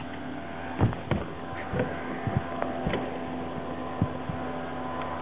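A steady electrical hum with about six short knocks and thumps scattered through it, the loudest about a second in.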